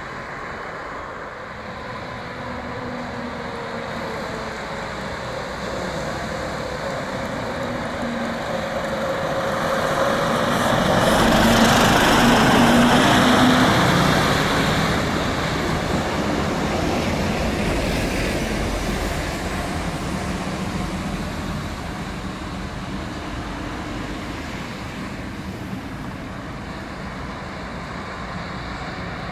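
A fire-brigade truck driving past: engine and tyre noise build as it approaches, are loudest as it passes about twelve seconds in, then fade as it drives away.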